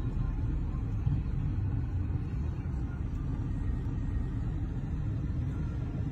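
Steady low rumble of a tow vehicle pulling a boat trailer up a concrete ramp.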